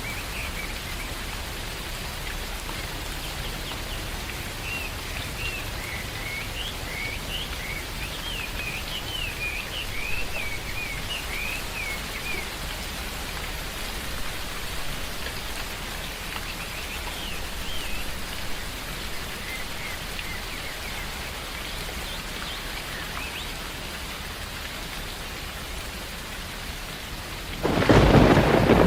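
Steady rain falling in a forest, with birds chirping in quick repeated calls through the first half that then thin out. Near the end a loud clap of thunder breaks in suddenly.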